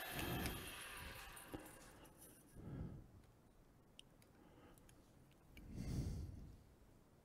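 Small wood lathe's motor whine fading away in the first second or two as the lathe coasts to a stop. Then it is quiet apart from a few faint clicks as a caliper is set on the pen blank, and a couple of soft low thumps from handling.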